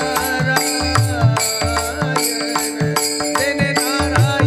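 Devotional kirtan music: a man sings a melody in long gliding notes, over a steady harmonium-like drone, with regular drum strokes and small hand cymbals keeping the beat.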